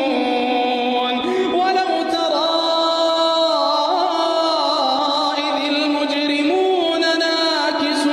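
Middle Eastern-style chanting: a single melodic line holding long notes, with ornamented slides between pitches.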